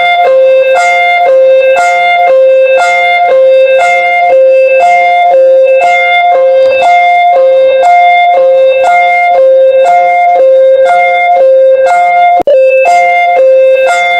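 Emergency alert tone: a loud, repeating electronic pattern of a steady lower note with a higher note cutting in and out about once a second. The tone breaks off for an instant near the end.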